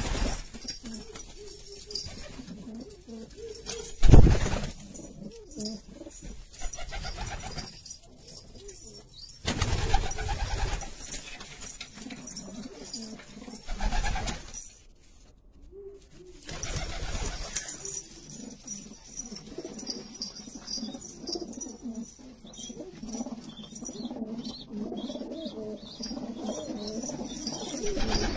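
A flock of domestic pigeons cooing continuously, broken by a few brief loud bursts of wing flapping as birds fly up. The loudest burst comes about four seconds in.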